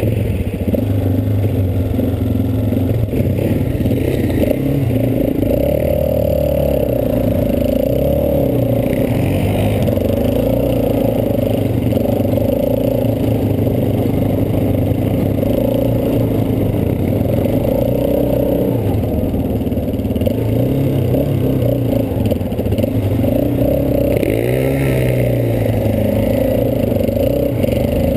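ATV (quad bike) engine running on the move, its pitch rising and falling repeatedly with the throttle as the quad rides along a snowy track.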